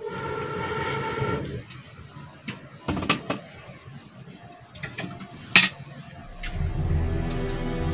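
Metal cookware clanking as a kettle is lifted off a small stove and a pot is set down on it: a few sharp knocks, the loudest about five and a half seconds in. A held tone runs for the first second and a half, and background music comes in near the end.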